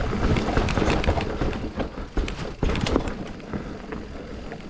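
Mountain bike ridden at speed over a rough, muddy trail: rattling knocks and clatter from the bike over bumps, with tyre and wind rush. It eases off and gets quieter after about three seconds.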